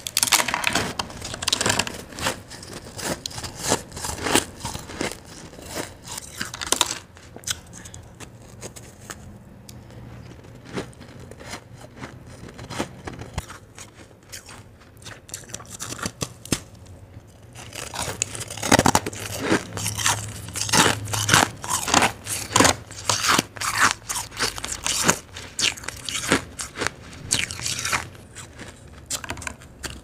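Close-miked crunching of powdery molded shaved ice as it is bitten and chewed: rapid crisp crunches that ease into a quieter stretch of about ten seconds in the middle, then come thick and loud again.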